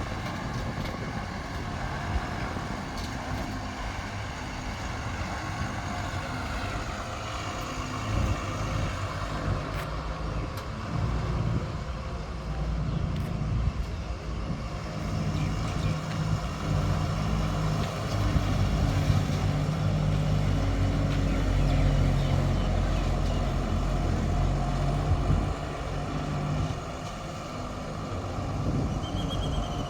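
Diesel engine of heavy construction machinery running steadily with a low rumble. Its pitch rises about seven seconds in, and it runs louder and harder from about eighteen to twenty-five seconds.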